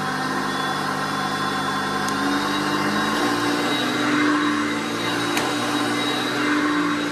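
Early-1980s Hoover Concept One vacuum cleaner running steadily. Its motor tone steps up in pitch about two to three seconds in.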